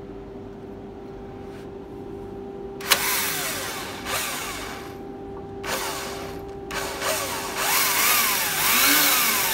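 An AEG cordless drill, converted into a bench drill press and running off a rectified 24-volt transformer, is switched on with a click about three seconds in. Its motor runs with a whine that rises and falls in pitch, stops briefly around six seconds, then starts again and runs louder near the end. A steady hum sits underneath throughout.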